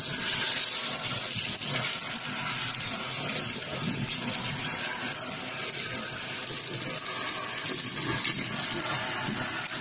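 Shark vacuum running with a crevice nozzle, sucking up a pile of fluff, popcorn kernels and craft bits from a carpet: a steady, hissing rush of air.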